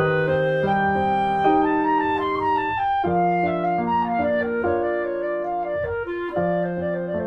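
Instrumental background music: a woodwind melody of held notes, clarinet-like, over piano accompaniment.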